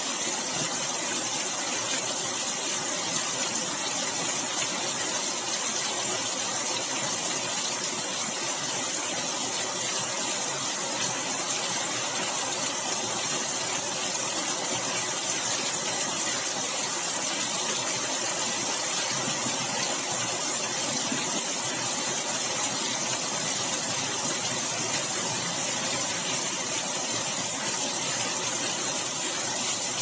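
Heavy rain pouring down in a storm: a steady, even hiss of rainfall with no breaks.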